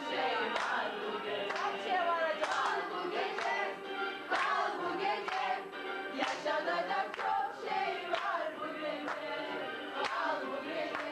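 A group of people singing together and clapping along in time, about one clap a second.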